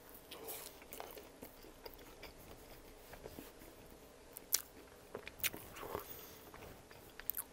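Close-miked chewing of a mouthful of chicken parm sandwich on soft garlic toast. It is faint, wet mouth noise with scattered sharp clicks, a few louder ones in the second half.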